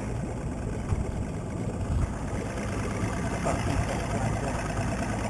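A boat's engine running steadily at low speed: a low, even hum.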